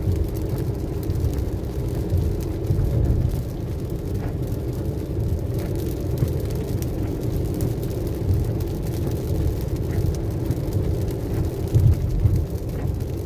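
Steady low drone of a car driving at highway speed on a wet road in the rain, heard from inside the cabin: engine and tyre noise.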